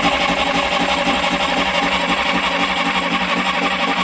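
Starter motor cranking an old, long-laid-up marine diesel engine, turning it over steadily without it catching: air left in the fuel line keeps it from firing.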